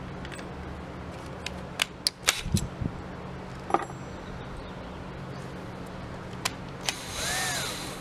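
Tools being handled on a wooden workbench: a few sharp clicks and a dull knock. Near the end, a Ryobi cordless drill is triggered briefly, giving a short whir that rises and falls in pitch.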